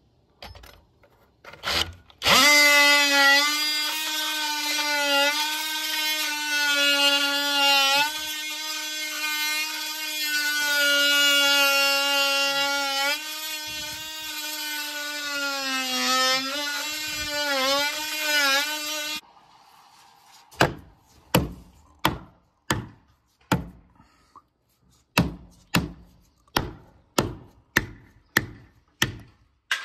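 DeWalt XR cordless oscillating multi-tool cutting into solid wood, a steady high buzz that dips in pitch each time the blade bears into the cut, running for about seventeen seconds before it stops. Then a hammer strikes the wood again and again, about one and a half blows a second, with a short pause partway through.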